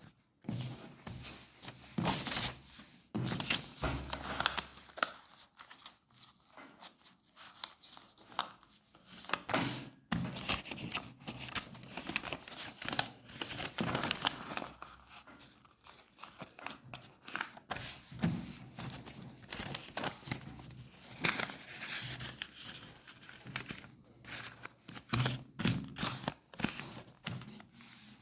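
Paper being handled by hand, with irregular rustling, crinkling and tearing throughout.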